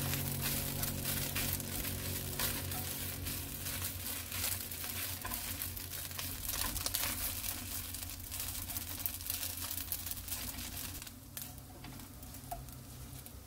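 Pollack skins crackling and rustling as they are stirred and tossed in a hot nonstick pan, the skins curling up as they turn chewy. The crackling thins out and quiets about eleven seconds in.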